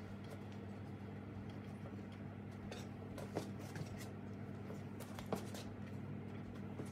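Scattered light clicks and taps of parts being handled on a bare LS V8 engine block, with two sharper clicks midway, over a steady low hum.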